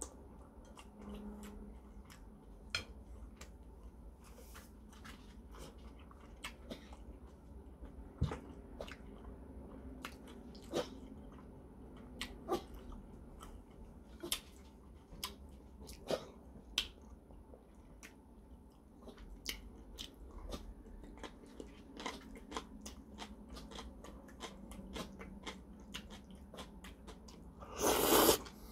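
Close-up eating sounds of jjajangmyeon noodles: chewing with many scattered wet mouth clicks and smacks, then a loud slurp of noodles near the end.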